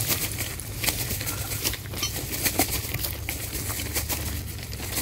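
Footsteps on the gravel ballast of a railway track, short crisp crunches a bit more than once a second, over a steady low rumble.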